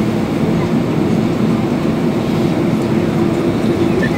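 Steady cabin noise inside an Airbus A320-214 on the ground after landing: a continuous low rumble with a steady hum.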